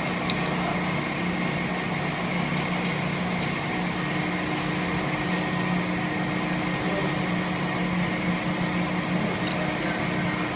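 A steady machine hum from the workshop, with a few faint clicks near the start and again near the end.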